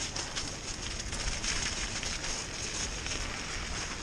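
Mountain bike tyres crackling and crunching steadily over an icy, snow-crusted path, with wind rumbling on the microphone underneath.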